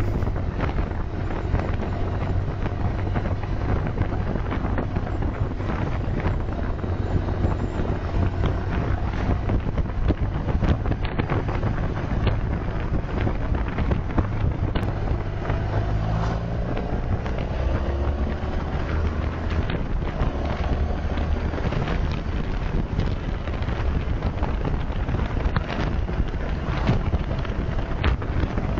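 A motorcycle riding at road speed, heard through a bike-mounted dash cam's own microphone: engine running with steady wind and road noise, and the engine note rising and falling a few times. The sound is dull, with no top treble.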